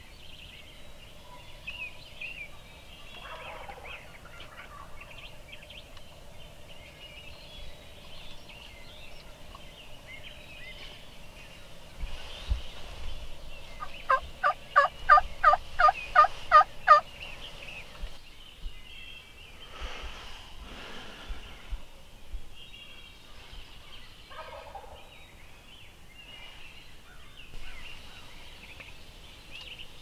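Wild turkey yelping: a loud, evenly spaced series of about a dozen yelps, roughly four a second, about halfway through, with fainter turkey calls before and after.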